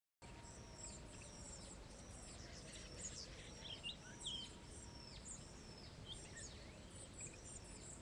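Small birds calling repeatedly outdoors: a string of short high calls, each falling in pitch, with a few sharper chirps in the middle, over a faint steady outdoor hiss. The sound cuts in just after the start and cuts off abruptly at the end.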